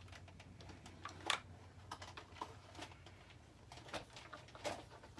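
Irregular small plastic clicks and taps from handling a toy blaster while batteries are fitted into its battery compartment, with a sharper snap about a second in and another near the end.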